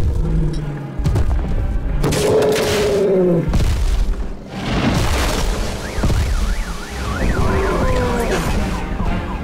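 Elephant trumpeting, with loud, bending, wavering calls and heavy thumps, over a soundtrack of music.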